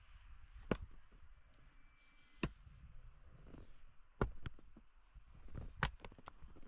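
A long-handled hand tool striking frozen, snow-covered ground: six sharp knocks a second or two apart, the last four in close pairs.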